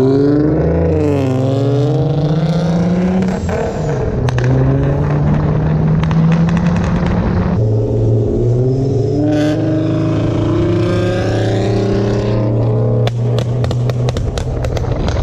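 Supercharged Infiniti G35's 3.5-litre V6 accelerating hard through the gears of its 6-speed manual, heard from inside the cabin. The engine pitch climbs steadily in each gear and drops at the shifts, about three and a half and seven and a half seconds in and again near the end.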